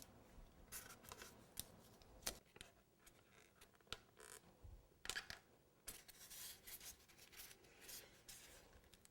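Faint handling noise: scattered light clicks and taps with a few short rustles as a cardboard-backed cake piece is set on top of the cake structure.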